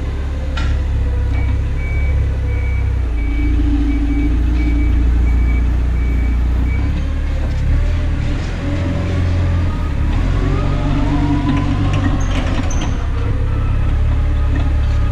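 Heavy diesel truck engine idling with a steady low rumble, while a vehicle's backup alarm beeps evenly, about two beeps a second at a single pitch, for around five seconds and then stops.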